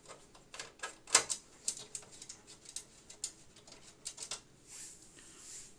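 Flathead screwdriver working the Torx/slotted combination screws on an HP Pavilion 590's metal case: irregular clicks and taps of metal on metal, with a couple of short scrapes near the end.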